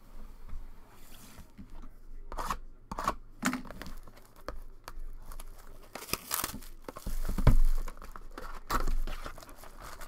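A sports card hobby box being opened by hand: wrapping tearing and crinkling, cardboard scraping, and foil card packs rustling as they are lifted out. A thump about seven and a half seconds in is the loudest sound.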